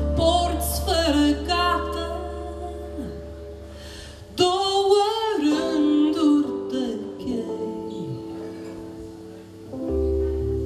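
A woman singing a folk song to her own acoustic guitar: one sung phrase at the start and a second, held phrase about four seconds in, over ringing guitar chords that carry on between them.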